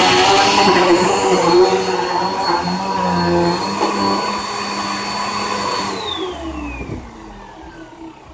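Bissell Powerforce Helix upright vacuum cleaner running with a steady high whine. It is switched off about six seconds in, and its motor winds down with a falling whine.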